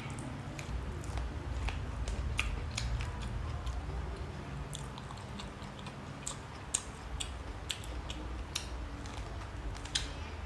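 A person chewing and biting food close to the microphone, with many short wet mouth clicks over a steady low hum.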